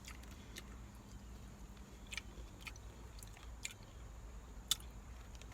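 A person chewing food close to the microphone, with scattered faint wet mouth clicks and one sharper click a little before the end.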